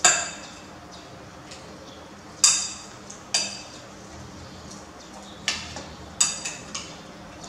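Metal spoon and fork clinking against ceramic plates and bowls while eating: a handful of sharp clinks with a brief ring, spaced a second or two apart, the loudest at the very start and about two and a half seconds in.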